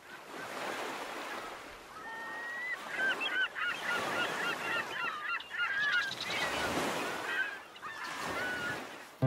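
Seaside ambience: gulls calling, with many short curved cries overlapping from about two seconds in until near the end, over the wash of waves that swell and ebb.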